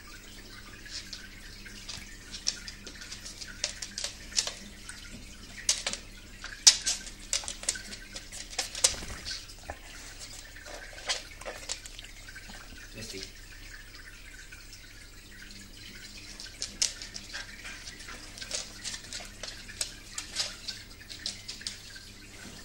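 Aquarium water dripping and trickling, with irregular sharp drips several times a second over a steady low pump hum.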